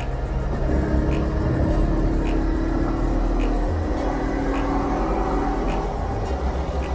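Honda CB300R's single-cylinder engine running at a steady pace under way, with wind and road noise on the rider's camera. A faint short tick repeats about once a second.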